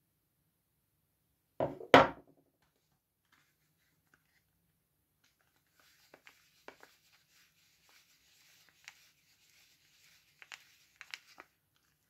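A bar of soap knocks twice against a wooden tabletop as it is set down. Then the wrapper of a wrapped Lux bar soap crinkles and rustles in the hands, with a few small crackles.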